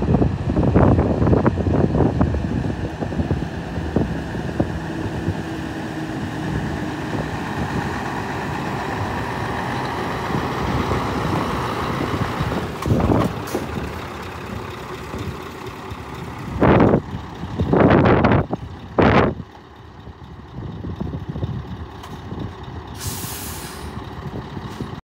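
Scania R500 V8 diesel truck engine running steadily, loudest in the first couple of seconds. In the last third come several short bursts of air hiss from the truck's air system, the last one higher and thinner.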